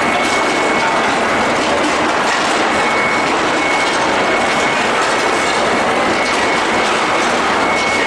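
Medium-frequency induction heating furnace line for forging bars running: a loud, steady machine din with a faint high whine held on one pitch.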